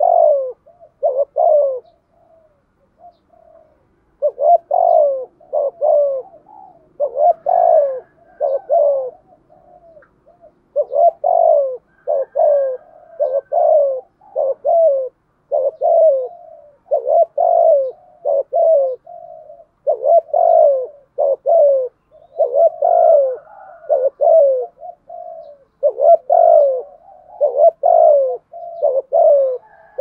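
Spotted dove cooing over and over: quick phrases of short falling coos, with a pause of about two seconds near the start.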